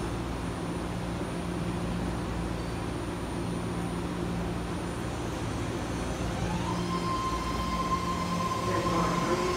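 Old legacy-fleet BART train standing at the platform with a steady electric hum. About six and a half seconds in, it starts to pull away: a whine rises and then holds steady, and rail noise builds toward the end.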